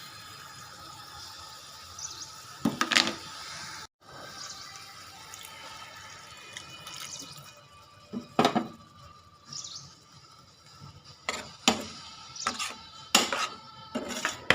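Water pouring or running in a kitchen, with scattered sharp clinks and knocks of utensils against a cooking pot.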